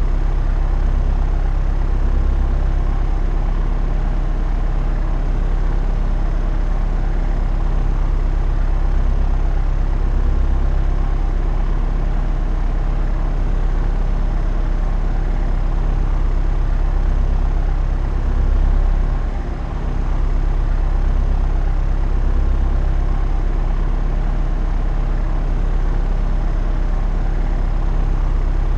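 Propeller aircraft in flight: engine and propeller droning steadily at a constant pitch, swelling briefly and then dipping a little about two-thirds of the way through.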